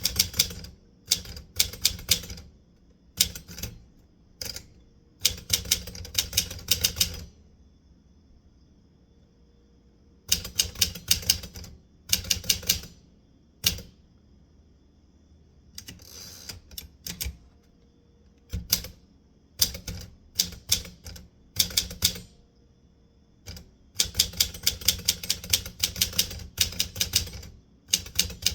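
Typewriter keys being struck in quick runs of sharp clacks, a second or two at a time, with pauses between the runs and a longer pause of a few seconds near the start.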